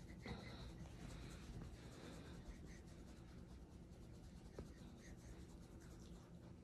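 Faint scratchy rustling of a hand rubbing a Siberian husky's belly fur, with a small click about four and a half seconds in.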